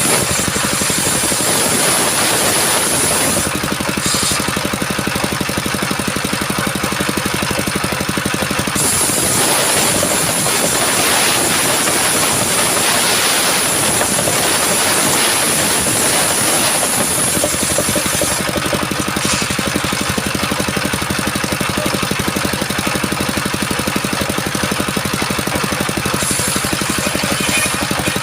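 Engine-driven circular sawmill blade running steadily through coconut-palm wood. A high whine gives way to a coarser rasping noise for several seconds in the middle, then comes back.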